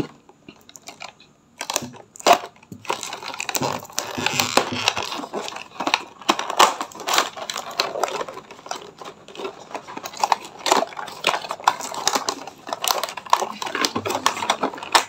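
Cardboard box being opened by hand: a ballpoint pen scraping and slitting the tape along its seams, then the cardboard flap worked loose, a busy run of scrapes, clicks and crinkling rustles starting about a second and a half in.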